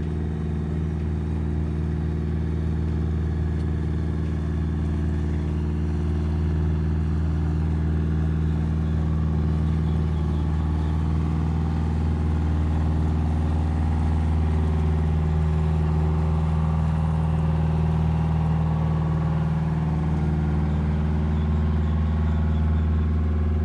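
Engine of a passing steamboat running steadily: a low, even drone that swells slightly toward the middle and cuts off suddenly at the end.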